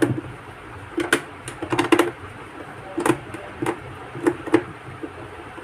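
Screwdriver turning screws out of a Bluetooth speaker's plastic casing: irregular sharp clicks and taps of the tool on the screw heads and the case.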